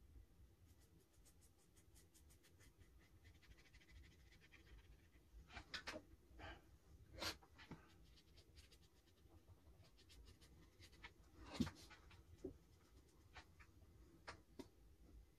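Very quiet: a paintbrush faintly scratching and stroking over watercolour paper, with a scattering of short soft taps and clicks, the loudest about three-quarters of the way through.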